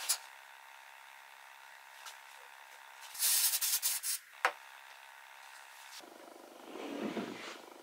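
Aerosol spray can hissing in several short spurts onto a freshly glued pine mitre joint, the activator for the glue, with a knock just after as the can is set down. From about six seconds, slow rubbing strokes of sandpaper on the wood.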